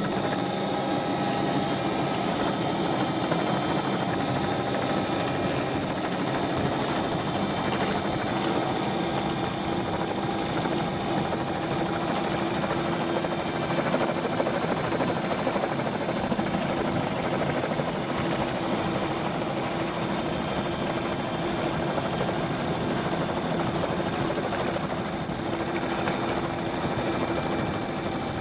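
Helicopter running steadily, heard from on board: a constant drone of rotor and engine with a few steady tones and no change in pitch.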